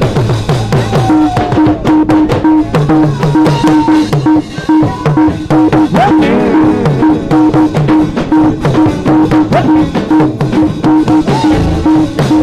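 Live gospel band playing an instrumental stretch: a drum kit keeps a steady, busy beat under a moving bass line and a pulsing, repeated keyboard note.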